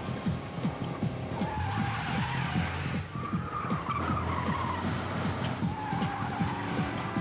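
Car tyres squealing in a long, wavering squeal as cars are driven hard through a chase, over a fast, low, rhythmic pulse of music.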